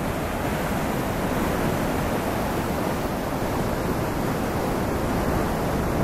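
Loud, steady rushing of a waterfall: whitewater pouring and churning over rocks.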